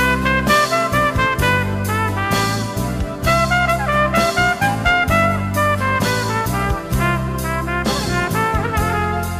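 Trumpet playing a melody in a run of short, quick notes over an accompaniment with a sustained low bass line.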